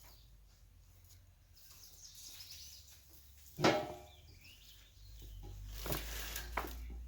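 Outdoor rural ambience with birds chirping and one loud, short call about three and a half seconds in; a steady low rumble builds from about five seconds in.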